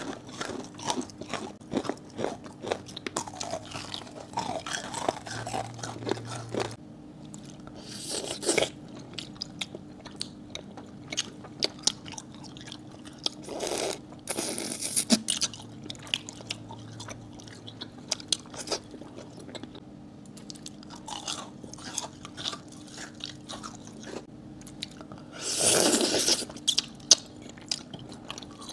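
Close-miked crunching and chewing of sugary candies, including sugar-crusted amber candy (kohakutou): many sharp, crackly bites and chews, with a few louder crunching bursts, the biggest near the end.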